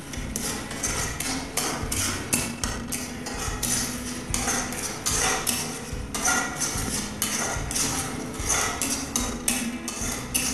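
Spatula scraping and knocking against a metal pan as a thick onion-garlic masala paste is stirred and fried, in quick repeated strokes.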